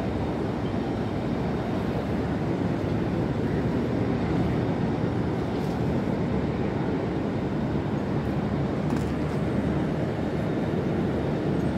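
Steady low rumble of a cargo ship's engines and machinery running during undocking.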